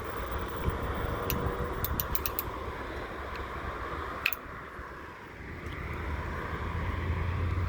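Road traffic going through an intersection: a steady rumble and hiss of passing cars that eases off about two thirds of the way in, then swells again as another vehicle comes closer near the end. A few short sharp clicks sound over it.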